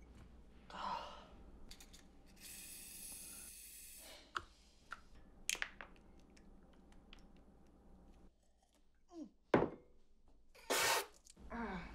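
Small kitchen handling sounds: a few sharp knocks and clicks of a mug and containers on the counter, a hiss lasting a second or so, and a breathy sigh near the end.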